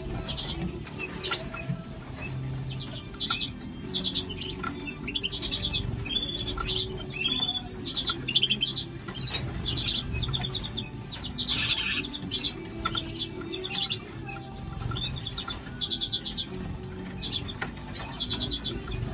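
Bramblings and starlings chirping and calling in quick, high bursts, with wings flapping, over a low steady hum.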